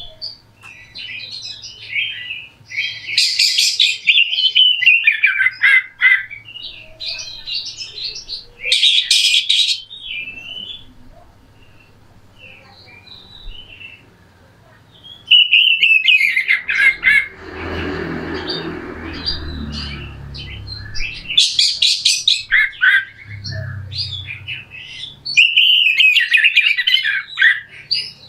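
Oriental magpie-robin singing a harsh, scratchy song in bursts of fast, varied phrases with short pauses. This is the rough 'kasar' style used as a training master to set other magpie-robins singing. About halfway through, a rushing noise runs for a few seconds under the song.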